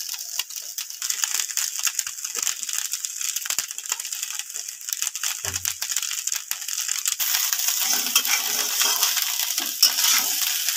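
Cooked rice and vegetables frying in oil in a metal pan, with a steady sizzle, while a metal spatula scrapes and clicks against the pan as the rice is stirred.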